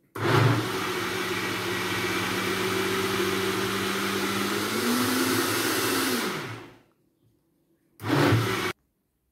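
Countertop electric blender running, blending avocado with milk and honey into a thick smoothie. The motor's pitch rises slightly about five seconds in, then it spins down near seven seconds, followed by one short pulse about eight seconds in that stops abruptly.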